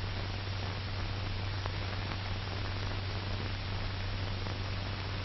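Steady hiss and low hum of an old 1940 film soundtrack with no narration, with a faint click or two.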